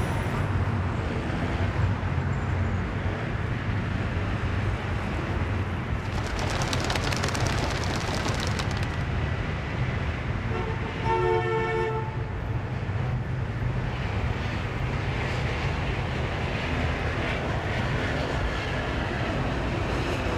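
Steady low rumble of a passing train, with a quick run of clattering clicks about six seconds in and a short horn blast about eleven seconds in.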